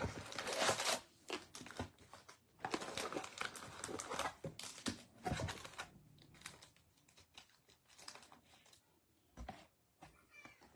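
Sealed 2022 Bowman baseball card packs crinkling and rustling in their foil wrappers as they are lifted out of the hobby box and stacked. The rustling comes in irregular bursts that grow sparser and fainter after about six seconds.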